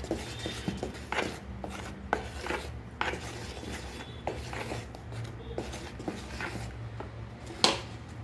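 Wooden spatula scraping and stirring thick cake batter in a plastic mixing bowl, in irregular strokes with a sharper knock near the end.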